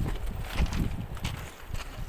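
Footsteps on railway track ballast: a few irregular steps and scuffs, loudest in the first second.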